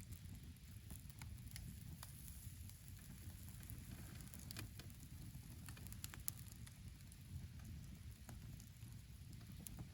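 Wood campfire crackling: faint, irregular pops and snaps, one sharper snap about six seconds in, over a low steady rumble.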